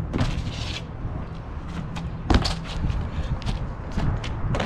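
Knocks and scuffs of a freerunner's shoes and hands on a garage roof and its brick wall as he climbs up and runs. One loud thud comes about two and a half seconds in, over a steady low rumble.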